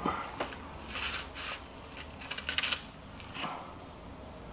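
Light clicks, taps and rubbing from handling a can of contact cement and a spreading tool on a worktable, with a quick run of small clicks about halfway through.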